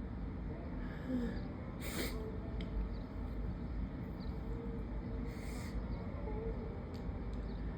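A person sniffling and drawing short, sharp breaths between sneezes in an allergy fit, with a few faint low hoot-like tones. Underneath is a steady low outdoor rumble.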